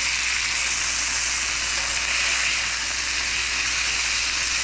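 Grouper fillets sizzling steadily in ghee and butter in a cast iron pan on medium heat.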